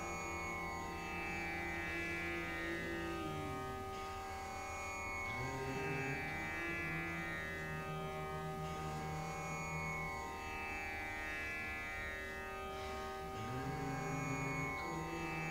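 Meditative drone music: many steady tones sounding together and slowly swelling, under a low held tone that fades out and slides back up into a new long note about 5 seconds in and again about 13 seconds in.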